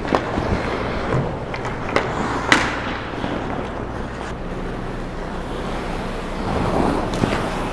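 Ice hockey play on an indoor rink: skates scraping the ice and a few sharp clacks of sticks and puck, the loudest about two and a half seconds in, over a low steady hum.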